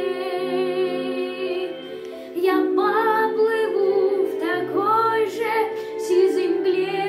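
A boy sings a slow Russian song over a backing track of sustained instrumental chords. He holds a note at the start, then sings two short phrases in the second half.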